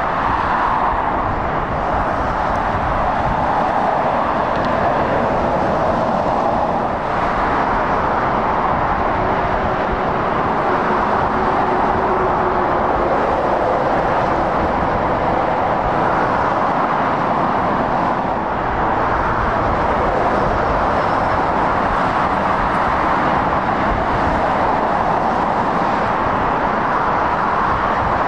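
Steady motorway traffic: tyre roar and engines of cars and lorries driving past. The noise swells and eases as vehicles come and go.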